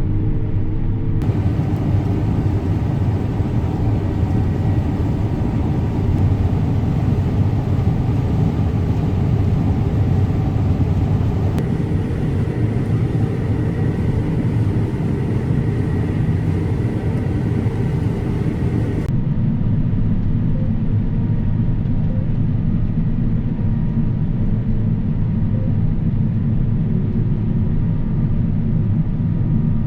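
Large harvest machinery running steadily with a deep engine rumble. The sound shifts abruptly about a second in, again near twelve seconds and near nineteen seconds, as if cut between different machines or spots.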